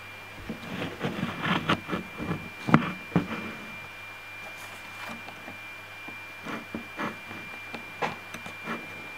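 Close-up scuffing, rubbing and irregular soft knocks as a British Blue cat moves against the camera, thickest in the first few seconds with the loudest knock a little under three seconds in, then more scattered clicks later. A faint steady high whine and a low hum run underneath.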